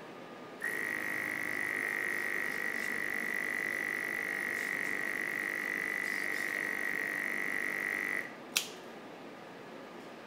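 Delta robot prototype running a pick-and-place move: a steady high whine starts just under a second in, runs for about seven and a half seconds and cuts off suddenly, followed about half a second later by a single sharp click.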